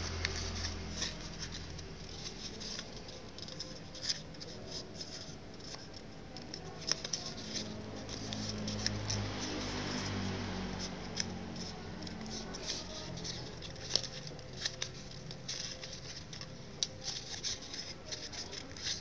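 Origami paper crinkling and rustling as hands fold and pinch it, with scattered sharp crackles, over a low steady hum.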